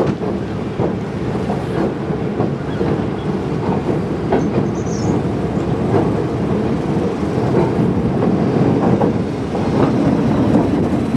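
BB 63500-series diesel-electric locomotive BB 64047 running slowly past close by, its diesel engine working under the clatter of its wheels over the yard's rail joints and points, with sharp clicks and knocks all through.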